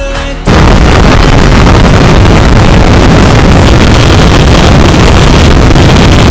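Yamaha R15 V3's single-cylinder engine running hard in fifth gear at about 125–130 km/h, largely buried under heavy, steady wind noise on the microphone. The sound comes back in full after a brief quieter moment about half a second in.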